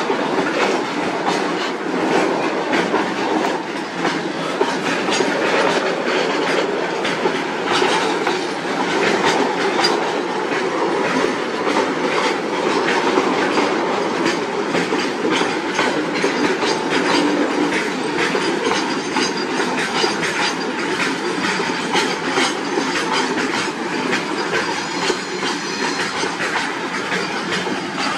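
Goods-train flat wagons rolling steadily past, their wheels clacking over the rail joints in a continuous string of sharp clicks over the rumble of the rolling wagons.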